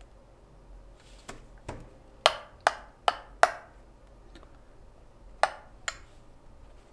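A series of about eight short, sharp clicks and knocks of hard objects, unevenly spaced, the loudest four coming close together around the middle.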